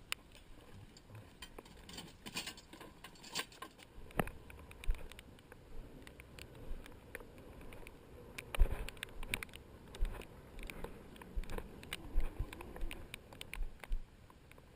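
Irregular soft taps, clicks and knocks, with a few heavier thumps about nine to ten seconds in.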